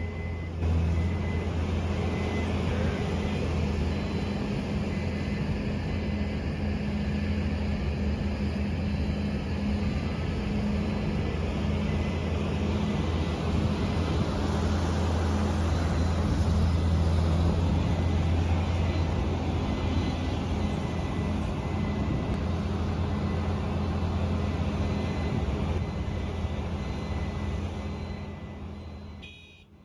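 Multione mini loader's engine running steadily, powering its hydraulic concrete mixer attachment, with a deep steady hum; the sound fades out near the end.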